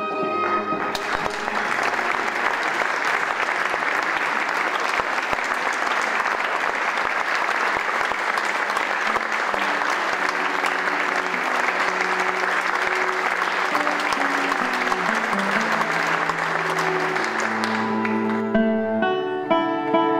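Audience applauding for a chamber ensemble, starting about a second in as a piece ends. About two seconds before the end the applause gives way to a new piece with cello and plucked strings.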